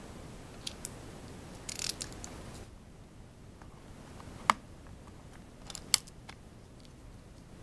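Clicks and snaps from the fold-out tilt leg on the underside of a TK-FCP096 slim pantograph keyboard as fingers work it: a few light clicks, a cluster near two seconds, then two sharp, loudest snaps about four and a half and six seconds in.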